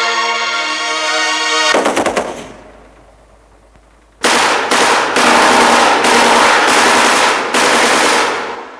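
A held chord of orchestral film music breaks off in a short rattle about two seconds in. From about four seconds in come several long bursts of machine-gun fire, one close after another, fading out near the end.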